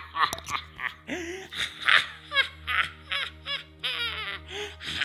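A theatrical ghostly laugh from the Betal, the vampire spirit of the story: a long run of rapid 'ha' bursts, each falling in pitch, over a low steady musical drone.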